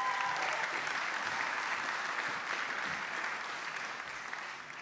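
Audience applauding in a large hall, the clapping strongest at first and slowly dying away.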